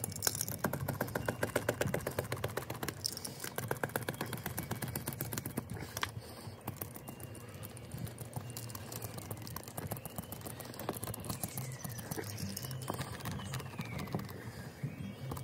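A hand seam roller with a small metal wheel is rolled hard back and forth over a freshly glued PVC patch on an inflatable boat tube, pressing it down to bond, making fast, rapid clicking that is busiest in the first six seconds. Faint rising-and-falling squeaks come in the second half.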